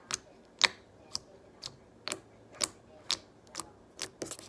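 Glossy slime being kneaded and pressed in the hands, giving sharp clicks and pops about twice a second.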